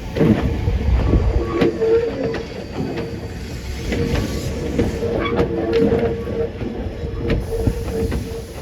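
Iyotetsu 3000 series electric train pulling into a station, running slowly. A steady high tone sits over a low rumble, with wheels clicking over rail joints every second or so.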